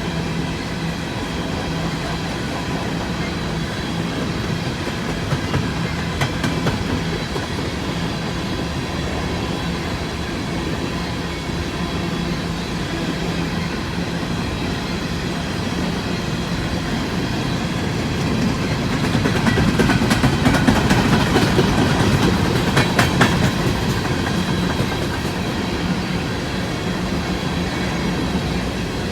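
Cars of an empty coal train rolling past, with wheels clicking over rail joints and a thin steady whine under the noise. The clicking grows louder for a few seconds about two-thirds of the way through.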